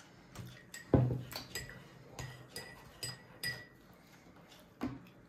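Dishes and cutlery clinking and knocking: a sharp knock about a second in, then several short ringing clinks, and another knock near the end.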